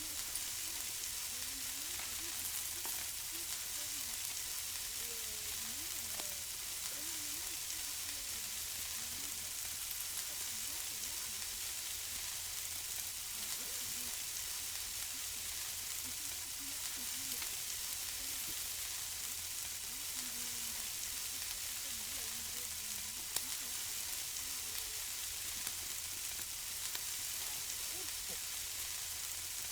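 Food sizzling on a barbecue grill: a steady hissing crackle with occasional small pops.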